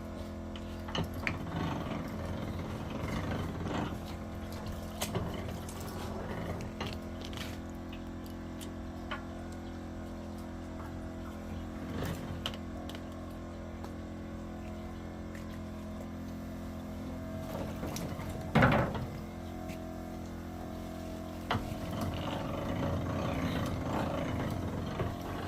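A small machine grinding beeswax, running with a steady hum. Rough grinding passes come and go, and one short loud burst comes about three-quarters of the way through.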